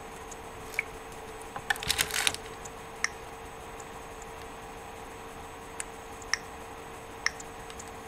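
A few light, scattered clicks and taps, with a quick run of them about two seconds in, over a steady faint hum.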